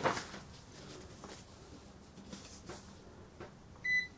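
The plastic alpha overlay sheet is laid over a Sam4S ER-900 cash register's flat keyboard, with a soft rustle at first and a few faint taps. Near the end a key press sets off the register's short, high beep.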